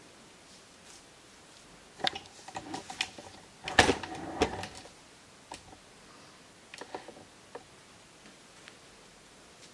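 Handling noise from the camera being picked up and moved: a run of knocks and clatters about two seconds in, loudest around four seconds in, then a few light clicks.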